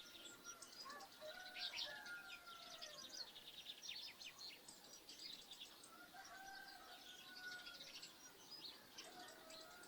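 Many small birds chirping and twittering in a dense chorus. Lower, drawn-out calls of farmyard fowl come in faintly near the start, again about one to three seconds in, and once more past the middle.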